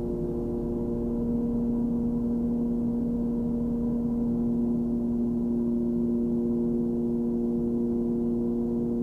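Cabin drone of a Cessna 340's twin piston engines and propellers in steady cruise: an even hum with a few strong, unchanging tones and no change in power.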